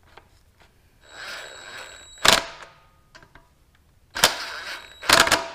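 Cordless drill with a socket extension running in two short bursts, each about a second long, tightening the carburetor mounting bolts on a Honda GC160 engine. The first burst ends in a sharp click.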